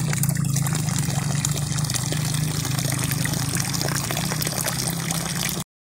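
Steady rush of running water, cutting off abruptly near the end.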